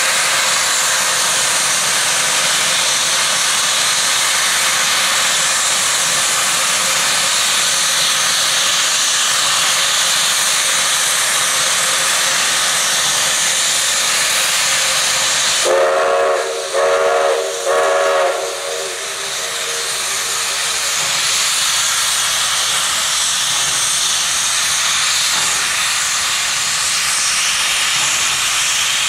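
Baldwin steam locomotive hissing loudly and steadily as steam vents from its cylinder cocks. About halfway through, its steam whistle gives three short blasts, and then the hiss carries on.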